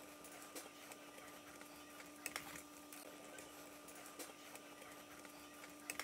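A few faint clicks and taps from handling a G4 iMac's aluminium base plate and screws, over a steady low hum.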